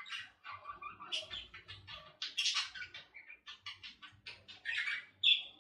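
Quiet, wet squelching and smacking of oiled hands pressing and patting a mashed-potato cutlet into shape, in many short irregular bursts.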